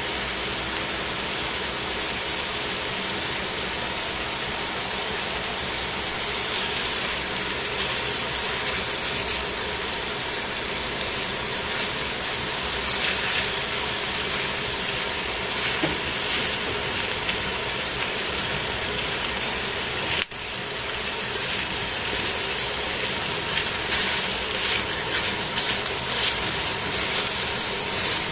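Chicken pieces frying in a stainless steel pan, a steady sizzling hiss that turns busier and more crackly from about halfway, as tongs turn the pieces.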